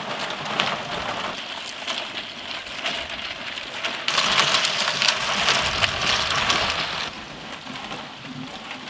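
Hand-cranked roller ice cream drum turning as liquid mix is ladled onto its frozen surface, giving a steady, crackling, rain-like hiss. The sound grows louder for a few seconds in the middle, then drops back.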